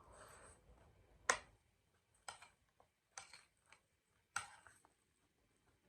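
Close-miked eating sounds: a few sharp crunchy clicks, roughly one a second, the loudest about a second in, with faint chewing between them.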